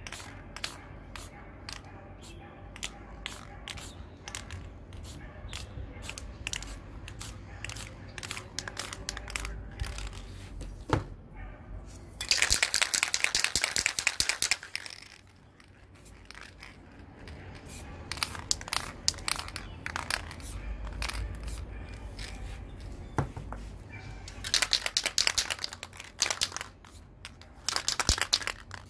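Aerosol spray-paint can hissing in two sustained bursts of a couple of seconds each, about twelve seconds in and again about twenty-four seconds in, with a short burst near the end. Between them, a run of short sharp clicks.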